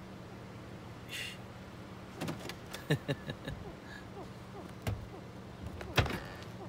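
Car engine idling, heard from inside the cabin as a steady low hum, with scattered sharp clicks and knocks, the loudest near the end.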